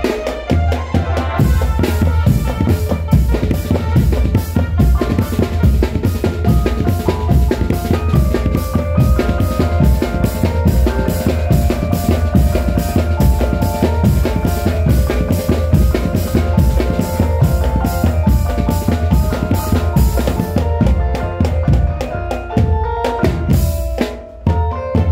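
Loud drum-led music: a steady, fast beat of heavy low drum strokes and sharper hits under a held melodic line, easing briefly near the end.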